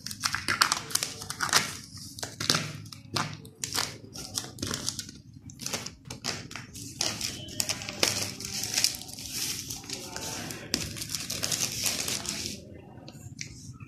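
Thin plastic shrink-wrap crinkling and tearing as it is pulled off a phone box, in a dense run of irregular crackles.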